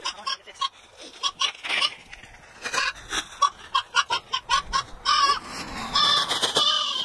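Chickens clucking: a quick run of short clucks, then longer, louder squawking calls about five and six seconds in.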